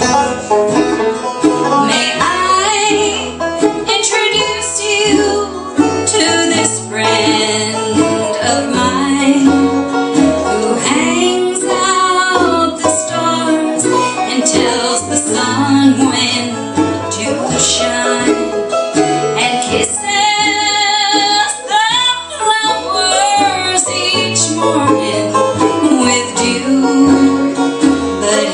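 Live bluegrass band playing: banjo, mandolin and acoustic guitar, with a woman singing in parts.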